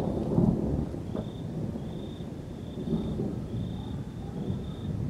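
Thunder rumbling low and uneven from a lightning-active supercell, loudest near the start and swelling again midway. A short high chirp repeats about once a second over it.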